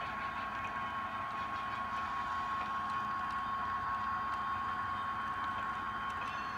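HO scale model boxcars rolling past on the track: a steady rolling noise from the wheels, with a constant high hum running through it and a few faint ticks.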